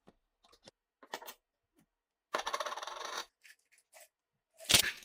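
Small metal parts of a Nagant M1895 revolver clinking and rattling on a hard surface: a few light clicks, a rattling scrape of about a second in the middle, and a sharp clink near the end.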